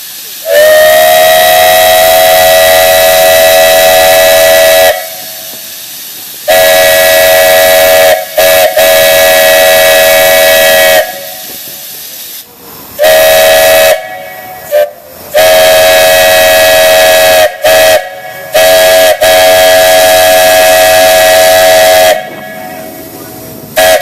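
A 3-inch Buckeye three-chime steam whistle blown in a series of long blasts of three to four seconds and several short toots, sounding a steady chord that slides up slightly as the first blast opens. Steam hisses from the rig between blasts.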